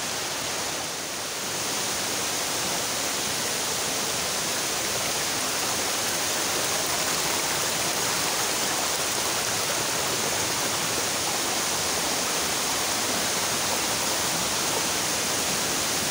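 Steady rush of water from a creek waterfall, growing a little louder about two seconds in and then holding even.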